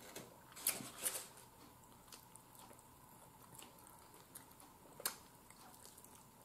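Faint close-up eating sounds of a fried chicken wing being pulled apart and chewed, with a few sharp crackles. The loudest crackles come about a second in and again near five seconds.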